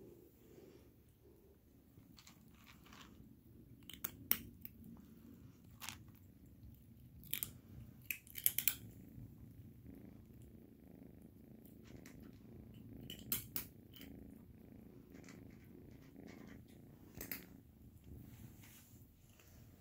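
Kitten purring steadily, a low continuous rumble, with a few short sharp clicks now and then.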